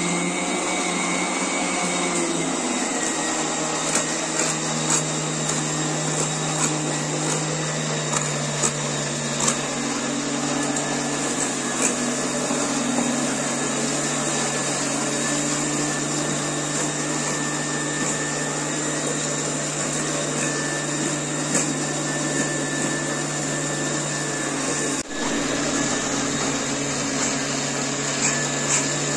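A small motor-driven machine running steadily with a constant hum, breaking off for an instant near the end and then carrying on.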